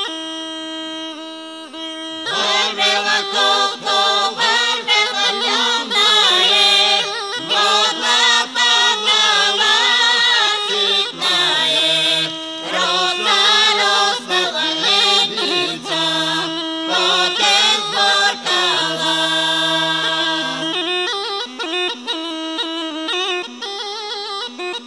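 Bulgarian kaba gaida (large Rhodope bagpipe) playing its drone and melody, with a folk group singing a Rhodope song over it from about two seconds in. The singing stops a few seconds before the end and the bagpipe carries on alone.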